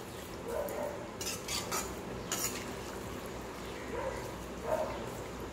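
A steel slotted spoon stirring peas, potato and capsicum masala in a metal kadai, with a few scrapes and clinks against the pan.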